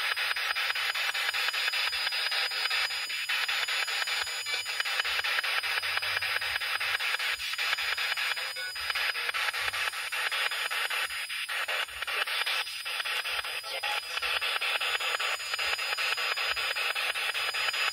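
Spirit box, a radio scanner sweeping through stations, giving a steady rush of static chopped into quick, even steps, with brief dips now and then.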